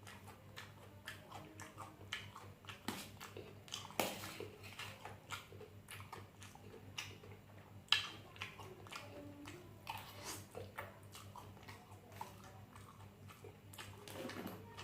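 Close-up chewing and biting of sausage in a mukbang: irregular wet mouth clicks and soft crunches, one sharper bite about eight seconds in.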